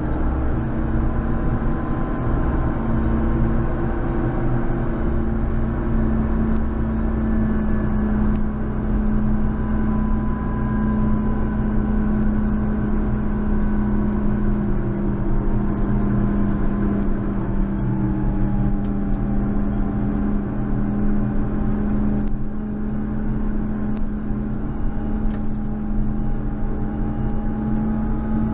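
JCB Fastrac 4220 tractor's engine running steadily while snow plowing, a constant drone whose pitch sags slightly a little past halfway through. The level dips briefly about three quarters of the way in.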